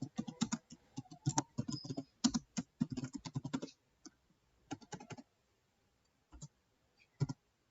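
Computer keyboard typing: a quick run of keystrokes for about three and a half seconds, then a few scattered single clicks.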